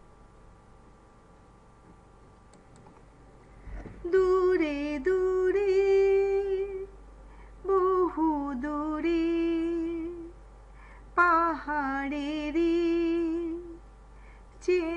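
A woman singing a wordless melody in long held, slightly wavering notes, in four phrases with short pauses between, starting about four seconds in. Before that only a faint steady hum.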